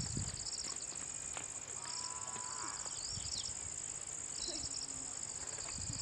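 Steady high-pitched chorus of crickets, with short pulsing trills recurring every second or two and a few faint, brief calls in between.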